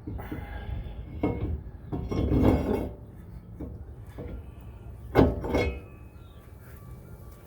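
Metal clinks, clanks and scraping as a brake rotor is turned on the wheel hub to line up its retaining-screw hole, irregular, with the sharpest clank about five seconds in.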